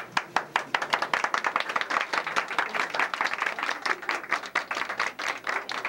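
A small group of people applauding, with many overlapping hand claps.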